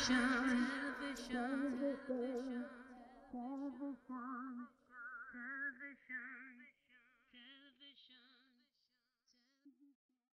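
The tail of a sung theme tune: the backing music stops at once, leaving a single voice holding a wavering, vibrato note that repeats in a fading echo and dies away to silence about six seconds in.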